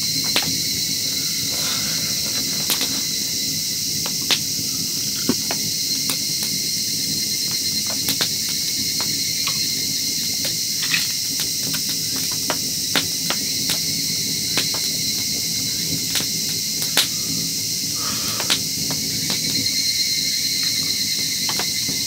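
Wood campfire crackling, with irregular sharp pops, over a steady high drone of insects.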